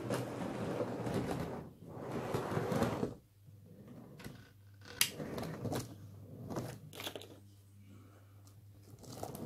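Model diesel locomotive running over track and pointwork, its motor running as the wheels click over rail joints and points. Louder for about the first three seconds, then quieter with scattered sharp clicks over a low steady hum.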